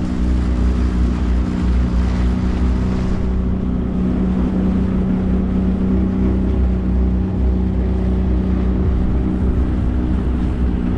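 Outboard motor of a small aluminium fishing boat running steadily under way, with wind rumbling on the microphone.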